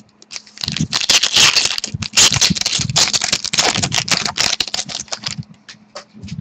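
Trading card pack being torn open and its cards handled: a dense run of crinkling, rustling and clicking that starts a little under a second in and thins out near the end.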